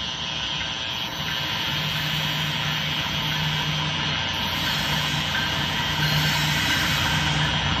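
Two GE wide-cab diesel-electric locomotives running at the head of a freight train as it approaches, a steady engine sound that grows louder.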